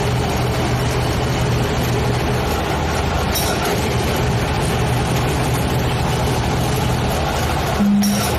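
Heavy diesel engine of a piling rig running steadily. Near the end there is a short low hoot.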